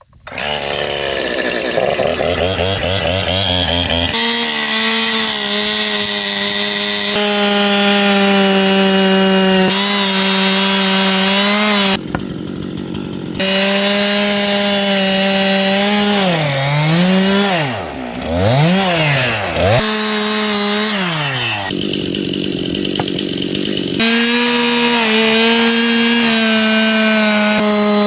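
Two-stroke chainsaw running at high revs while carving wood, its engine note held steady for long stretches. About two-thirds of the way through the engine drops off and revs back up a few times, and the sound changes abruptly several times.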